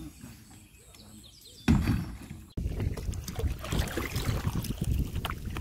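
Lake water splashing, with wind buffeting the microphone. A loud rush of wind about two seconds in, then after an abrupt cut a steady wash of splashing with irregular small slaps.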